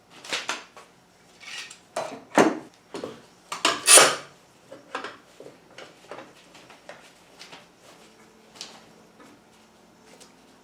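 Hard objects being handled and knocked together: a quick run of sharp clatters and knocks, the loudest about four seconds in, then lighter, scattered taps.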